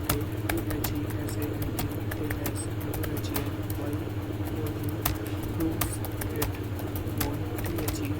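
Computer keyboard keys being typed on: irregular sharp keystroke clicks, a few each second, over a steady low hum.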